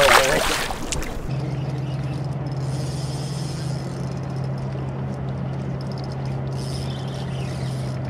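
A boat motor running with a steady, even hum. It is preceded by a brief, loud rush of noise at the very start.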